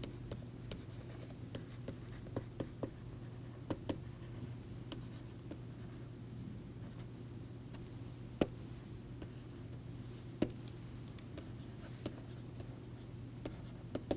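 A stylus tapping and scratching on a pen tablet while handwriting, heard as scattered sharp clicks, over a steady low hum.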